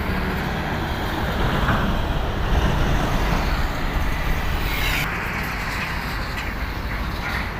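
Road traffic passing, with the steady low rumble of heavy vehicle engines and tyre noise.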